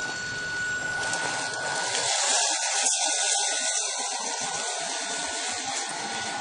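Small electric drive motor of a homemade remote-control truck model running as the truck drives off: a steady high whine over a hiss, swelling a little partway through.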